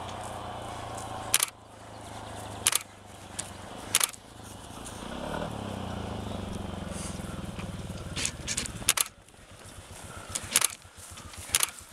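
A motor engine running steadily with a low hum. It drops out about a second and a half in and comes back for a few seconds around the middle, with sharp clicks at intervals.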